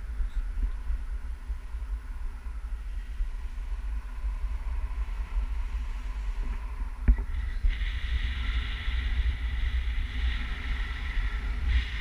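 Wind buffeting the camera microphone during a tandem paraglider flight, a steady low rumble. About eight seconds in, a higher rushing sound joins it for about four seconds as the glider swings into a fast turn.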